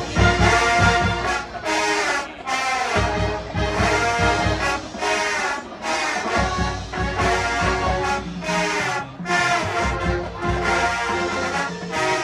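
Marching band playing, the brass section sounding chords in short phrases broken by brief gaps, over a heavy low end.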